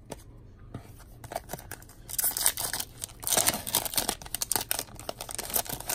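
Foil wrapper of a 2019 Upper Deck X-Files trading-card pack being torn open and crinkled by hand, in two spells of crackling starting about two seconds in.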